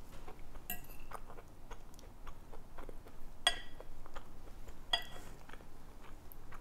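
A metal fork clinking against a glass serving bowl while scooping up salad: three ringing clinks, the loudest about halfway through, with smaller clicks in between.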